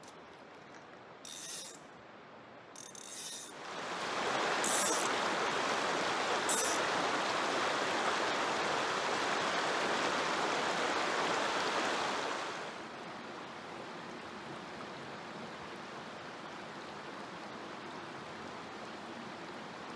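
Creek water rushing over rocks. The rush is loud for several seconds after a quiet start, then drops to a softer steady rush about two-thirds of the way through. A few brief clicks or scrapes sound in the quiet opening seconds.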